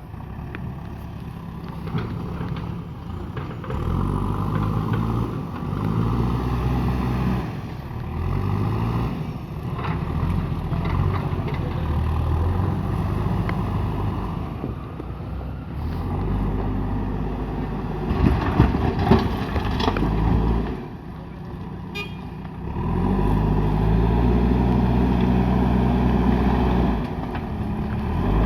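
JCB backhoe loader's diesel engine running and revving up and down repeatedly as it works under load, with a few sharp knocks about two-thirds of the way in.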